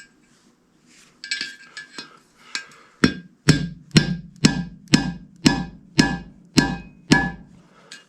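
Hammer striking a screwdriver to drive the old bushing out of a Ford C6 transmission's extension housing: a few light taps, then about nine evenly spaced ringing metal blows, roughly two a second. The bushing is barely moving.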